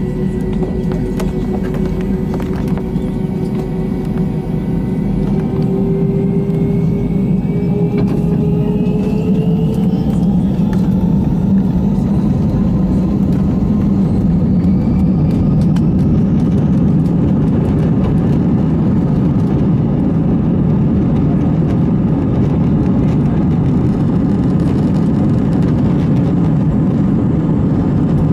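Airliner jet engines heard from inside the cabin. A whine rises in pitch over a few seconds as the engines spool up, then settles into a steady loud rumble at takeoff thrust as the plane rolls along the runway.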